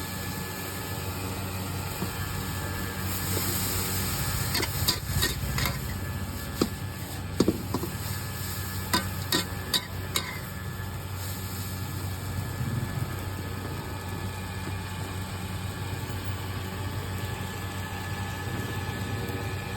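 Busy street-food stall ambience: a steady low hum with a hiss, and a run of sharp clicks and knocks between about five and ten seconds in.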